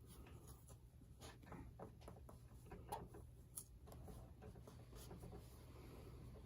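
Near silence with faint, scattered rustles and small clicks as electrical tape is handled and pressed down onto a panel.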